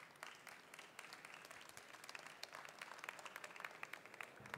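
A small audience applauding: faint, dense hand clapping.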